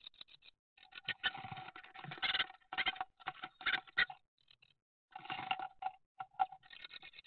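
Great tit pecking and scratching at the wooden floor of a nestbox: bouts of rapid taps and scrabbling, with a short lull about four seconds in.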